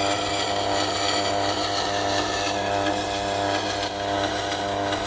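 Tormek T8 wet sharpening machine's motor running with a steady hum while a steel chef-knife edge is ground on its turning SG250 stone, giving a continuous grinding hiss. The grinding is light and taking off little metal.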